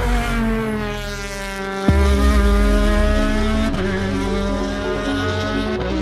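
Rally car engine at full volume as the car takes the corner: the engine note falls for the first two seconds, then a single sharp bang. The engine then pulls away with two sudden steps in pitch, like gear changes.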